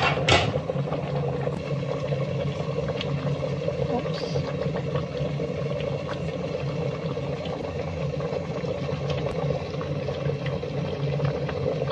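Water boiling in a steamer pot, a steady low rumble under the perforated tray as the buns go in. A short sharp clatter comes right at the start.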